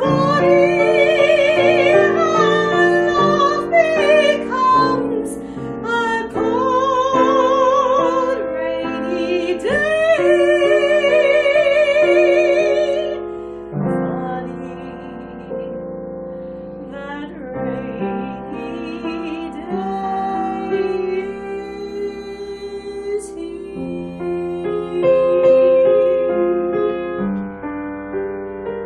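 A woman singing with a wide vibrato to piano accompaniment; a little over a third of the way through the singing gives way to a quieter piano passage.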